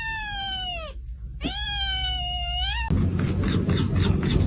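A cat giving two long, drawn-out meows, the first falling in pitch and the second rising. About three seconds in, it cuts abruptly to a steady low rumble with regular clicks.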